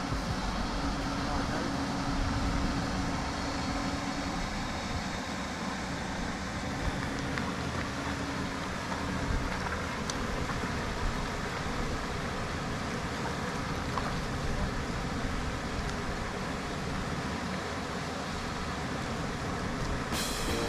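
Steady outdoor background noise: a continuous low rumble with a hiss over it, and no distinct events.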